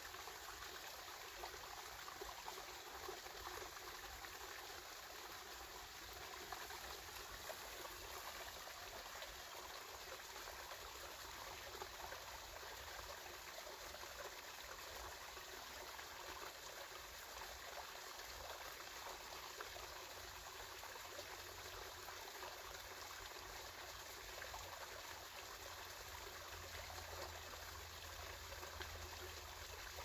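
Mountain stream flowing steadily: an even, continuous rush and trickle of running water.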